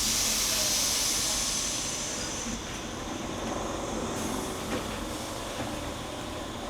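Compressed air hissing out of a Z5300 commuter electric train at a standstill, a loud hiss that dies away over about two seconds, over a steady low hum from the train.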